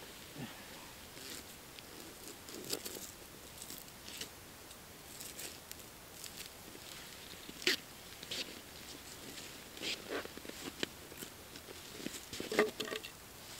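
Irregular crunches and scrapes of snow and ice as someone works at an ice-fishing hole. The sharpest come about halfway through and near the end.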